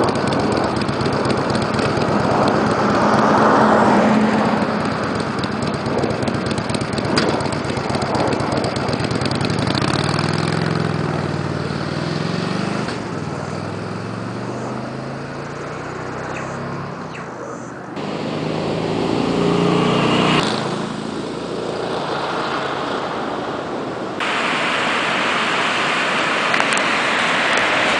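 Stock 2011 Harley-Davidson Nightster 1200's air-cooled V-twin on its standard pipes, running close by and then ridden past twice, its note rising and falling with each pass. Near the end it cuts to the steady rush of river rapids.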